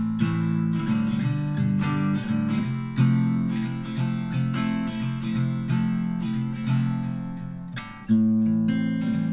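Background music of an acoustic guitar strumming chords. It fades a little and comes back with a strong new strum about eight seconds in.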